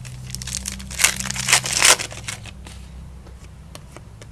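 Crinkling and tearing of a trading-card pack wrapper as a pack is opened, with a burst of loud crackles about a second in, then lighter rustles as the cards are handled. A faint steady hum runs underneath.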